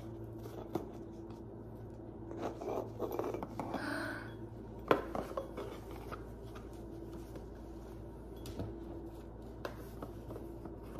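A ribbon-tied cardboard gift box being opened by hand: soft rustling, scraping and rubbing as the ribbon comes off and the lid is worked loose, busiest about two to four seconds in, with a sharp tap about five seconds in. A faint steady hum runs underneath.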